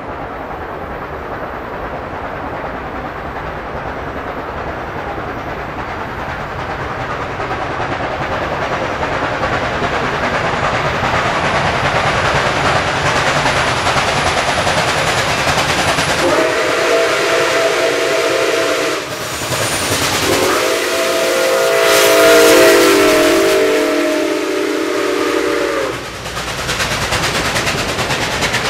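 Nickel Plate Road 765, a 2-8-4 Berkshire steam locomotive, moving slowly with steam hissing from around its cylinders, growing louder as it comes on. Its chime whistle then blows a chord of several tones: a blast of about three seconds some 16 seconds in, a longer blast of about five seconds soon after, and a third starting at the very end.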